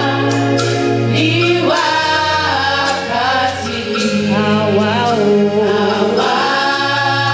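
Choir singing a gospel song: a held chord, then a moving melodic phrase through the middle, settling back onto a held chord near the end, over a steady low note.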